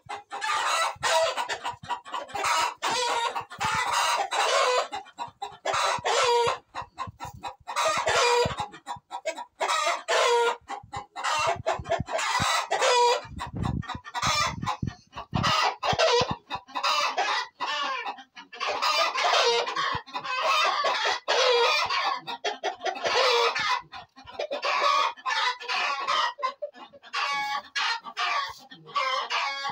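A flock of chickens clucking continuously, with roosters crowing among them; many birds call over one another.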